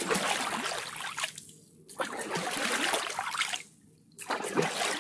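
Water splashing and trickling in three surges, each about a second and a half long, with short lulls between.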